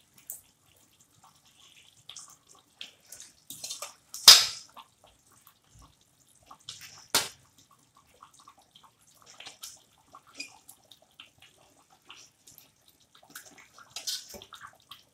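Fried surmai fish pieces set one by one into simmering curry gravy in a pan: wet plops and splashes, the loudest about four seconds in and another about seven seconds in, with faint scattered wet pops between.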